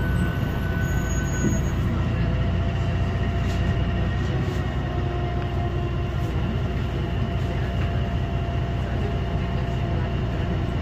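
Inside the lower deck of a DAF DB250 double-decker bus: the engine and Voith automatic gearbox running steadily, a low rumble with a steady whine over it.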